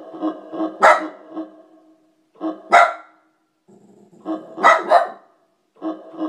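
A dog barks four times, loud and sudden, at a repeating electronic keyboard sound effect playing two to three pitched notes a second. The keyboard pattern drops out for a couple of seconds in the middle and comes back strongly near the end.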